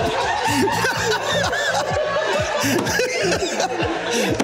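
Several people laughing together, with stray half-words among the laughter.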